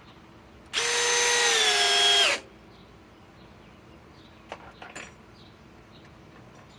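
Milwaukee M12 Fuel third-generation impact driver running in one burst of about a second and a half, its pitch dipping slightly just before it stops. A few light clicks follow about two seconds later.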